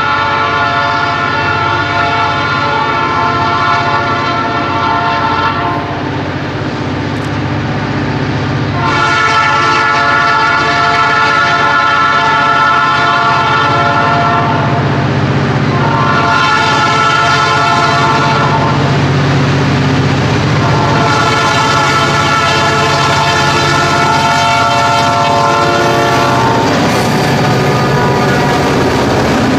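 Bessemer & Lake Erie diesel freight locomotive sounding its air horn for a grade crossing in the standard pattern: long, long, short, long. After the last blast the lead locomotives pass close by, their diesel engines running and wheels rolling over the rails.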